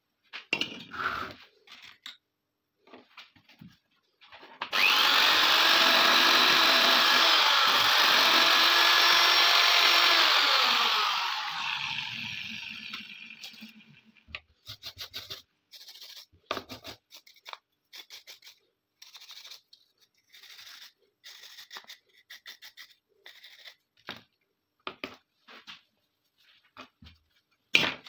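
A small electric power tool runs steadily for about six seconds, then slows and dies away over a few seconds. Before and after, short clicks and scrapes of metal pistol parts being handled on the bench.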